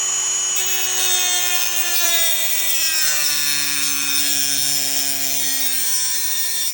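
Dremel rotary tool with a thin grinding wheel cutting a screwdriver slot into an oval security screw head: a high whine over a gritty hiss, its pitch sagging from about three seconds in as the wheel bites into the metal, then cutting off suddenly at the end.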